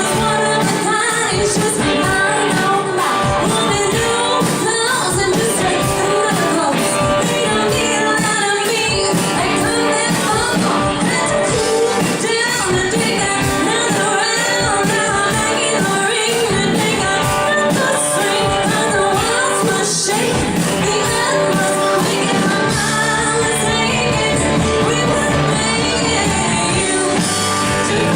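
Live band playing a pop-rock song with singing over it, heard through the room of a large hall.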